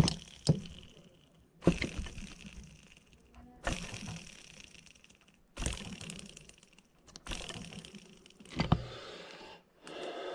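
A chainsaw ball bearing spun by hand, flicked about six times, each spin giving a rough whirring that fades over a second or two. It is only mildly rough, the first stage of bearing failure.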